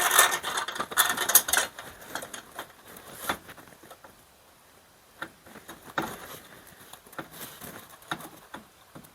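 Hand-handling noises of small hardware: rustling and light clicks as mounting bolts are picked up. Busiest in the first couple of seconds, then only scattered clicks.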